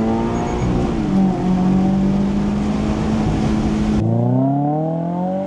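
2025 Toyota GR86's 2.4-litre flat-four running through an HKS Hi-Power single-exit aftermarket exhaust: a steady engine note over road and wind rush while driving. About four seconds in the rush drops away and the exhaust note climbs steadily as the engine revs up under acceleration.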